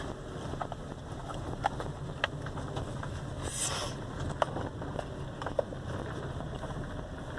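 Car driving slowly, heard from inside the cabin: a steady low engine and road rumble with scattered small clicks and knocks, and a short hiss a little past the middle.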